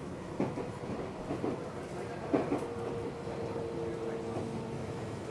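Seibu 6000 series electric train running, heard from inside a motor car. The wheels knock sharply over rail joints a few times, then a steady whine with two held tones sets in from about halfway.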